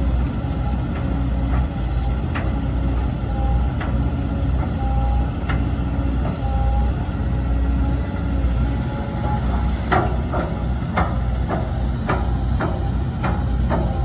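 Volvo EC200D excavator's diesel engine running steadily, with short whines from the hydraulics. From about two-thirds of the way in comes a run of sharp knocks, several a second.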